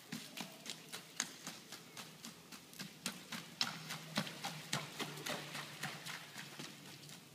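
Hoofbeats of a young filly being ridden at a quick gait on dirt and grass: an even run of sharp beats, about four a second.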